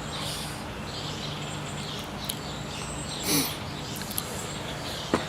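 Birds chirping faintly over a steady low hum, with a short louder sound about three seconds in and a click or two near the end.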